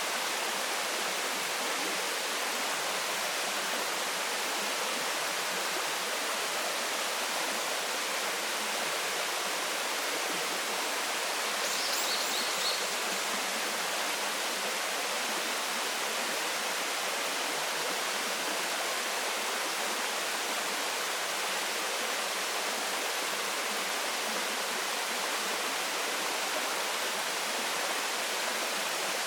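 Waterfall pouring steadily, a constant rush of falling water, with one brief high chirp about twelve seconds in.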